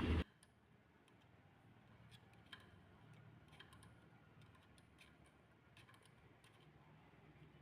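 Faint, scattered small clicks and taps of hands handling a plastic cross-flow blower wheel from an AC indoor unit, as a lizard jammed in it is worked loose. A louder noise cuts off abruptly at the very start.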